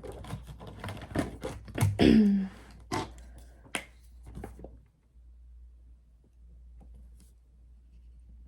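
Handling noise: a quick run of sharp clicks and rustles as paper bills and a money-savings holder with bill slots are handled. The clicks stop about halfway through, leaving faint room tone.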